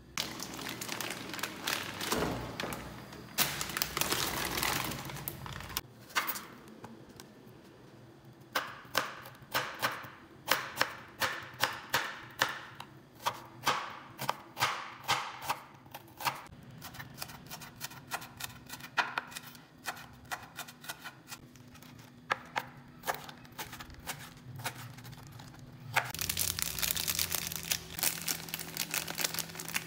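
Kitchen knife chopping green bell pepper and red onion on a hard cutting board: scraping and crunching at first, then a long run of sharp knocks. Near the end a steady hiss takes over.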